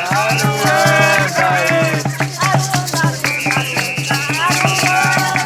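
Carimbó played live: hand drums beating a steady rhythm and maracas shaking, with voices singing or calling over it.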